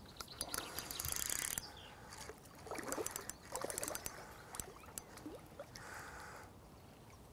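Quiet water splashing from a hooked fish being played near the surface, with scattered small clicks and faint bird calls.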